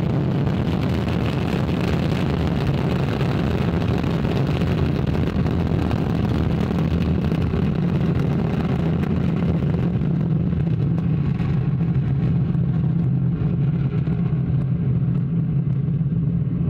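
Steady, deep rumble of an Ariane 5 rocket's Vulcain main engine and two solid boosters at liftoff and in the first climb. The higher hiss in the noise fades about ten seconds in.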